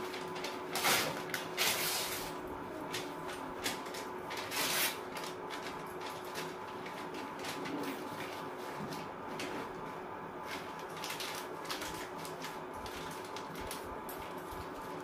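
Small household items and packets being handled: a few louder knocks and scrapes about a second in and again near five seconds, then light clicks and rustling over a steady faint hum.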